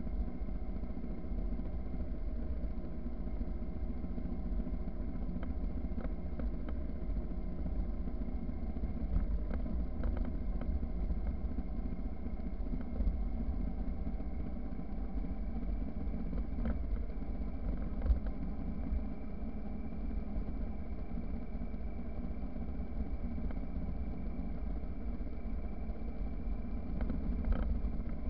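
Motorcycle engine running steadily at cruising speed on a gravel road, over a constant low road and wind rumble. A few short sharp ticks stand out, the loudest about 18 seconds in.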